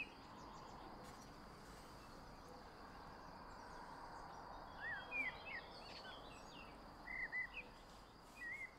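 Faint outdoor background noise with a few short bird chirps, a cluster about five seconds in and more around seven seconds and near the end.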